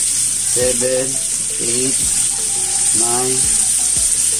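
Chicken pieces frying with a steady sizzle in a pan of sautéed garlic, onion and tomato, the browning stage of chicken adobo.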